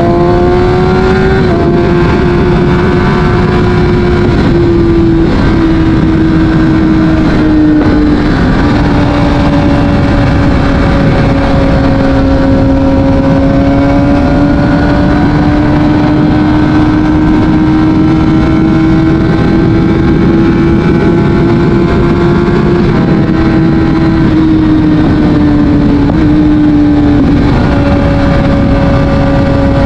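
Kawasaki Ninja ZX-6R's inline-four engine through an Akrapovic exhaust, running loud and steady at cruising speed. The pitch drifts slowly up and down, with a few brief drops, over a steady rushing noise.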